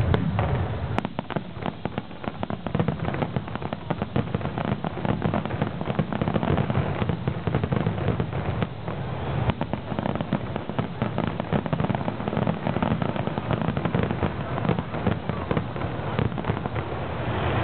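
Aerial fireworks going off continuously: a dense run of rapid pops and bangs over a low rumble.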